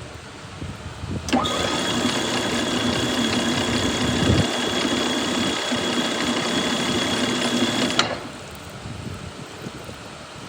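Lathe making a thread-cutting pass: a steady mechanical whine with a high ringing tone over a gritty noise starts suddenly about a second in and cuts off sharply about eight seconds in.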